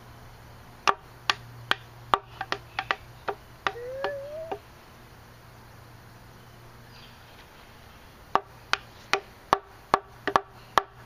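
Small hammer striking a wooden peg in a wooden saw bench: a quick, uneven run of about ten sharp knocks, a pause of a few seconds, then another run of about eight.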